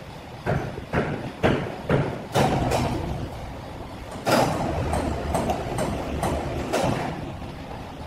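A few sharp knocks in the first couple of seconds. Then, from about two and a half seconds in, a rumbling, scraping run of machinery noise as overhead lifting gear lowers a heavy sawn timber slab on steel cables until the cables go slack.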